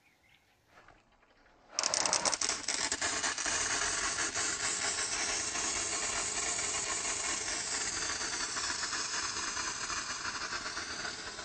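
Homemade air-pressure water gun, a plastic cold-drink bottle pumped full of air, shooting a fine jet of water through a narrow pen-tube nozzle with a steady, loud hiss. It starts suddenly about two seconds in and weakens slowly toward the end as the bottle's air pressure runs down.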